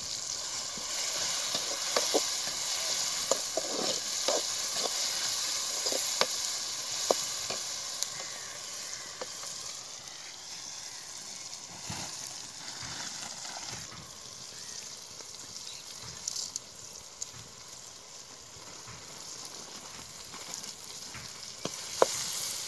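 Onions and tomatoes sizzling in hot oil in a black iron kadai, stirred with a steel ladle that clicks and scrapes against the pan several times, mostly in the first eight seconds and again near the end. The sizzle is louder in the first half and eases off later.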